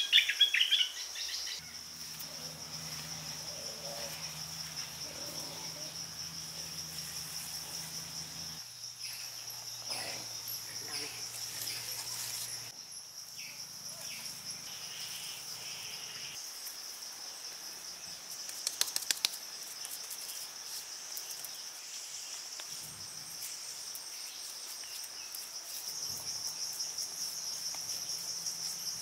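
Steady high-pitched insect chorus (crickets) droning without a break. A few sharp chirps at the very start, and a quick run of clicks about two-thirds of the way through.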